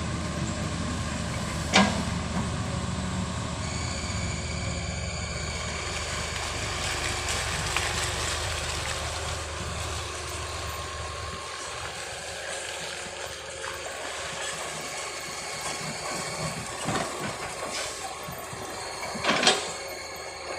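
Heavy vehicle engine running with a steady low rumble that drops away about halfway through, with a sharp knock near the start and another near the end.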